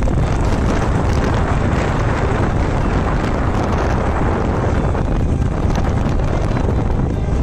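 Wind rushing over the microphone, mixed with road and engine noise from a moving vehicle: a steady, loud, even noise that stays level throughout.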